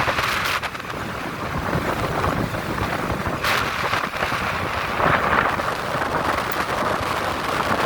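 Tropical-storm wind buffeting the microphone: a rough, loud rushing noise that swells in gusts, strongest about three and a half and five seconds in.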